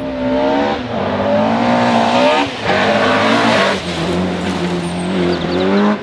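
Rally car engine revving hard on a gravel stage. Its note climbs, dips sharply about two and a half seconds in as it shifts, then climbs again, over the hiss of tyres and gravel.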